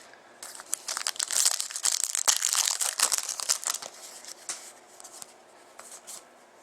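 A trading card pack's wrapper being torn open and crinkled by hand: a dense crackling rustle for about three and a half seconds, then a few faint ticks as the cards are handled.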